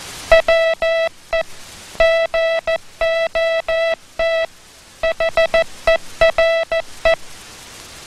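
Morse code sent as a buzzing tone of one steady pitch, spelling WE GOT HERE in three groups of short dits and long dahs. The spaces between dits and dahs are tight, the gaps between letters are longer, and there is a clear pause between each word.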